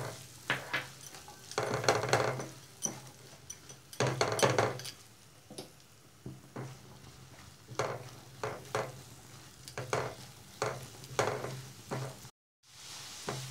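Diced onions frying in melted butter in a nonstick pan, sizzling quietly, with repeated scraping strokes as a silicone spatula stirs them around the pan. The sound breaks off for a moment near the end.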